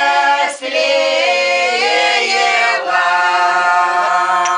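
Siberian Old Believer women singing a slow, drawn-out folk song a cappella, several voices holding long notes together in harmony.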